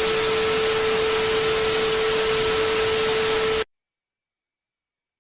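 Loud static hiss with a steady mid-pitched tone running through it, cutting off abruptly about three and a half seconds in, followed by dead silence.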